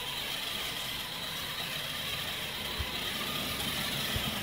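Electric drive motors of a small homemade RC truck running at low throttle, a steady high whine as it drives across a tile floor. Two soft low thumps in the second half.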